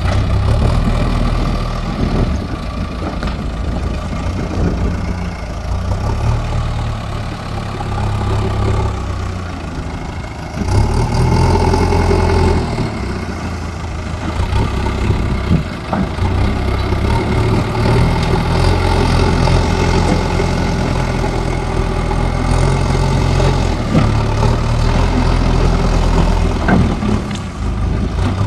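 Diesel engine of a JCB earth-moving machine running continuously as it works, its load and loudness rising and falling, with a louder stretch starting about a third of the way in.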